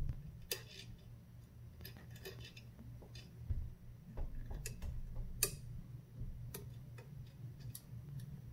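Scattered light clicks and ticks at irregular intervals as a fan's wire mounting clip is worked onto a be quiet! Dark Rock 4 CPU cooler's fan frame, over a low steady hum.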